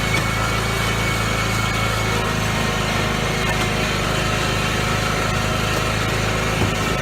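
John Deere riding lawn mower engine running steadily at constant speed.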